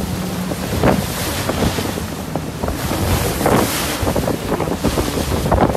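Strong wind buffeting the microphone over rough, whitecapped water, with waves splashing and surging gusts about a second in, around the middle and near the end.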